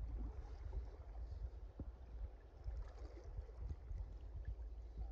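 Low, steady rumble of wind and handling on a phone microphone held close over a shallow stream, with faint running water and a few light knocks.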